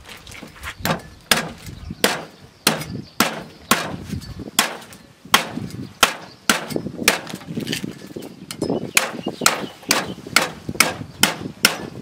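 A heavy meat cleaver chopping through a whole pig's ribs along the spine, striking down onto wooden boards. There are about twenty sharp blows, roughly two a second, coming a little faster in the second half.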